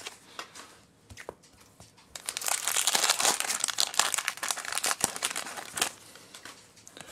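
Foil Pokémon booster pack wrapper crinkling and tearing as the pack is opened and its cards are pulled out. It starts about two seconds in as a dense crackle and dies down near the end, after a few light handling clicks.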